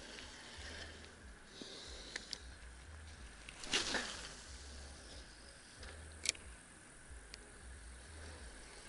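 Casting a spinning rod: a swish of the rod and line about four seconds in, falling in pitch. A few sharp clicks of the spinning reel come before and after it, over a faint low rumble.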